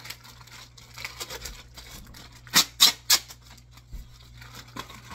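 Plastic packaging and paperwork being handled in a cardboard box, rustling, with three sharp crinkles in quick succession about two and a half seconds in.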